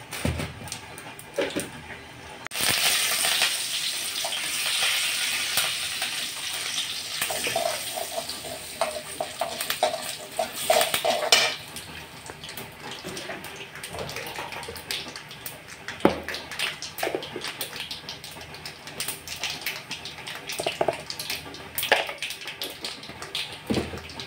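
Hot oil in a kadai sizzling and spluttering loudly as a tempering of chana dal, mustard seeds and curry leaves fries. The burst starts suddenly about two seconds in and fades after about nine seconds to a low sizzle, with a perforated steel ladle scraping and tapping on the pan.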